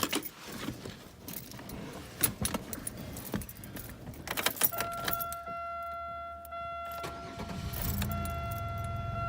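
Keys jangling and clicking in the ignition of a 1999 Buick Century, heard from inside the cabin; a steady high tone comes on about halfway through. Near the end the 3.1 V6 starts with a short surge and settles into a steady idle.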